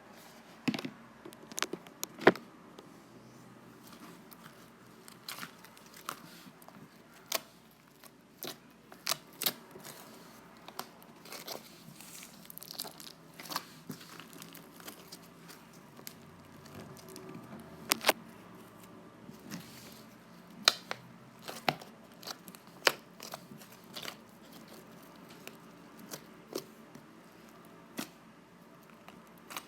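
Fluffy slime being squished and stretched by hand, giving irregular sharp clicks and pops, several a second at uneven spacing.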